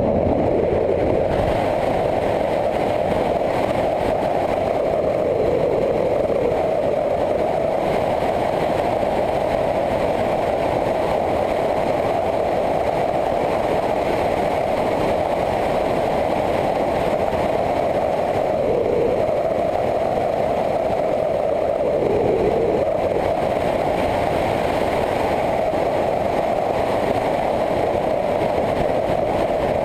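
Motorcycle engine running steadily at road speed, mixed with wind rush on the camera microphone. The engine note dips briefly twice about two-thirds of the way through, as the throttle comes off into bends.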